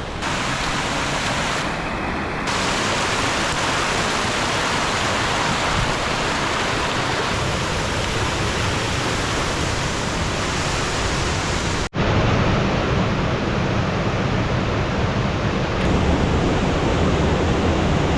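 Waterfall cascading, a steady rush of falling water. It cuts out for an instant about twelve seconds in and comes back slightly louder and deeper.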